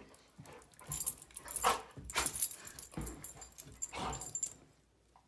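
A Dalmatian and a curly-coated poodle-type dog play-fighting with open mouths: a handful of short, rough dog vocal sounds and scuffles, dying away about four and a half seconds in. It is play mouthing with soft bites, normal play rather than aggression.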